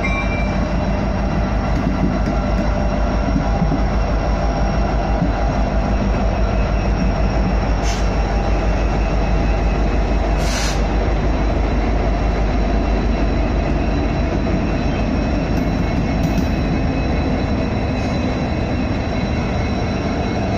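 Several Norfolk Southern diesel-electric locomotives passing close by, their engines running with a steady low rumble. A couple of sharp clicks from the wheels come midway.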